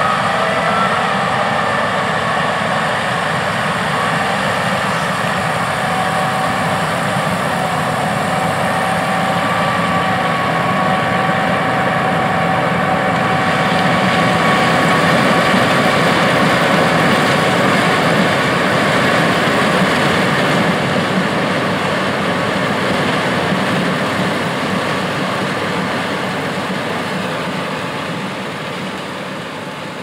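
John Deere S780 combine harvesting corn: its diesel engine and threshing machinery running steadily, with a faint steady whine over the noise. The sound swells a little toward the middle and fades gradually near the end.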